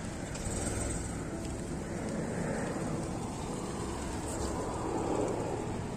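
Volkswagen Polo hatchback driving slowly over a dirt ground, a low steady noise of engine and tyres mixed with wind on the microphone.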